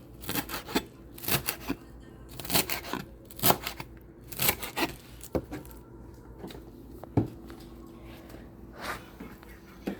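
Fresh cilantro being cut up by hand: about a dozen crisp snips and rips at irregular intervals, thinning out after about five seconds.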